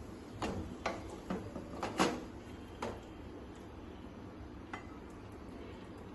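Slotted spatula knocking and scraping against a steel pan and a steel serving bowl as cooked laai saag is moved from the pan into the bowl. There are about six sharp knocks in the first three seconds, the loudest about two seconds in, and one more near five seconds.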